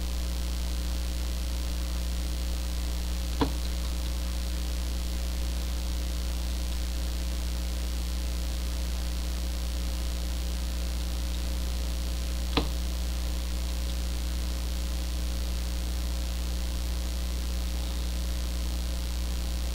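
Steady electrical mains hum with a few fainter steady tones above it. Two sharp mouse clicks stand out, one a few seconds in and another about two-thirds of the way through.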